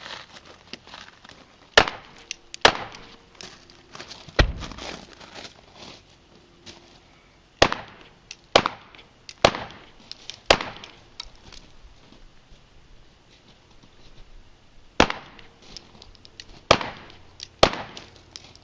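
Glock 17 9mm pistol fired in single shots: two quick shots, then a heavier thud of a car door shutting, then four shots about a second apart. After a pause come three more shots near the end.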